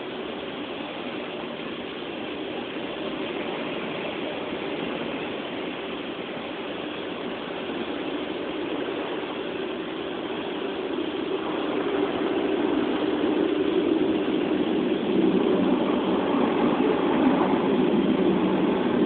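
Automatic car wash heard from inside the car's cabin: the wash machinery and water working over the car make a steady, noisy rumble that grows louder through the second half.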